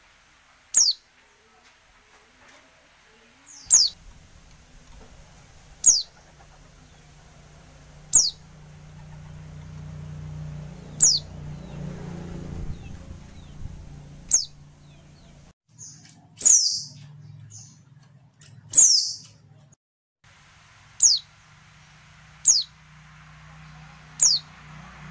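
Female white-eye (pleci) giving short, high calls that drop quickly in pitch, one every two to three seconds. Two calls near the middle are longer and louder. This female call is used to prompt male pleci to sing.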